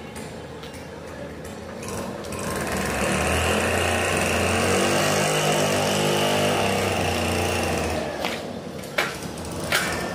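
Small engine running steadily for about five seconds, growing louder about two seconds in and cutting off near the end; two sharp clicks follow.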